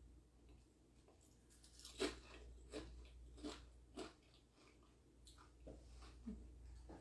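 Close-up chewing of a crisp cracker spread with cream cheese: a run of crunches, the loudest about two seconds in, then more every half second or so, growing fainter.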